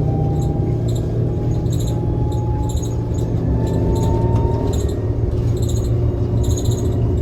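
Interior of a 2015 New Flyer XT60 articulated trolleybus in motion: a steady low hum and road noise, with the electric traction motor's thin whine rising slightly in pitch. Short high chirps repeat about once a second.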